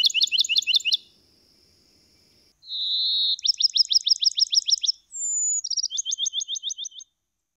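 Bachman's sparrow singing: three songs, each a clear held whistle followed by a rapid trill of repeated notes, every song pitched differently. The first ends about a second in, the next starts near the middle, and the last begins from a higher whistle and ends near the end.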